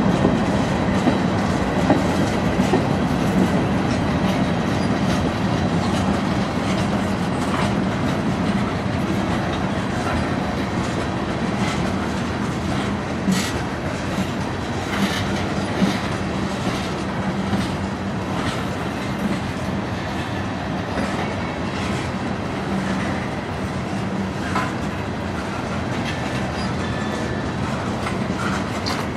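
Freight train of tank cars and covered hoppers rolling past, a steady rumble of steel wheels on rail with irregular clicks and clacks as the wheels cross rail joints.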